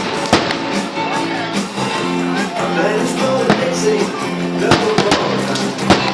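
Guitar rock music playing loudly, with a few sharp firework bangs cutting through it, the strongest near the start and two more near the end.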